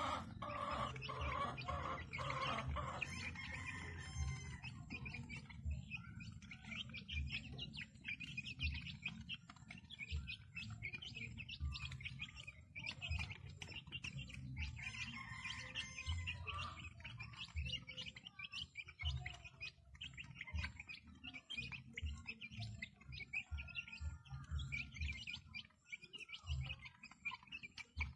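Young native chickens cheeping and peeping in a rapid, continuous chatter while they feed, with scattered soft low knocks.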